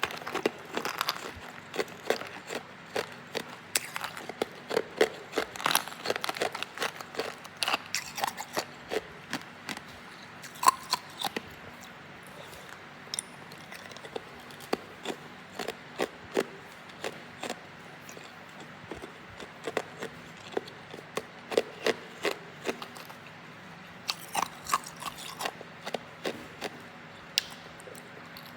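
Hard ice being bitten and chewed: rapid, sharp crunches in runs, with a few short pauses between them.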